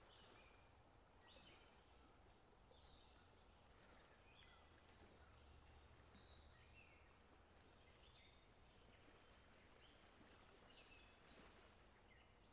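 Faint birdsong: several birds giving many short, high chirps and calls over a low, steady rumble.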